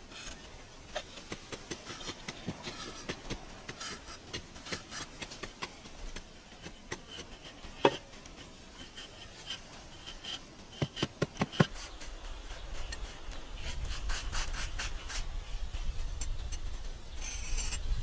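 Knife blade scraping and scratching grooves into a dried clay wall, with small scratchy ticks and a few sharper clicks where the blade catches, a quick run of them about two-thirds through. A low rumble builds through the last third.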